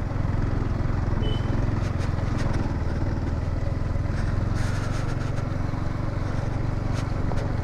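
Motorcycle running at a steady speed, a constant low rumble with no change in pace.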